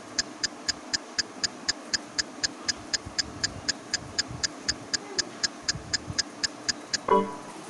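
Rapid, even clock-like ticking, about four ticks a second, over a low steady hum; the ticking stops about seven seconds in with a short, loud pitched tone.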